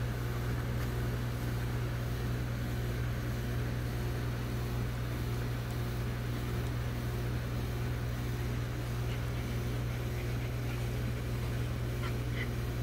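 A steady low mechanical hum from an unseen motor or appliance, unchanging throughout, with a couple of faint ticks near the end.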